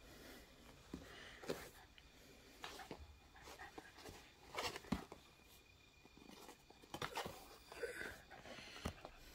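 A small dog playing tug with a rope toy: scattered soft knocks, scuffs and rustles from the toy and the dog's paws, with the loudest knock about five seconds in.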